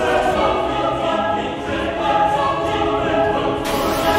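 Background choral music: choir voices holding sustained chords.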